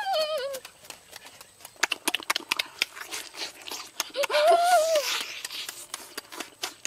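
Messy eating of boiled chicken by hand: wet lip-smacking and chewing clicks, then a louder slurping bite about four seconds in with a short high-pitched rising-and-falling vocal sound.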